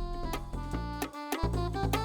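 Instrumental music with a steady beat and deep bass notes, starting abruptly out of silence.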